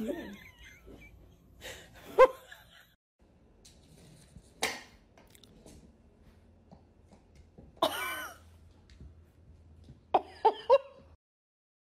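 A dog's short throaty vocal sounds, each well under a second and a few seconds apart, with a longer one that bends in pitch about eight seconds in and three quick ones in a row near the end.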